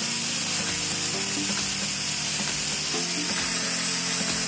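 Handheld angle grinder running under load, its disc grinding into a metal bar with a steady high whine.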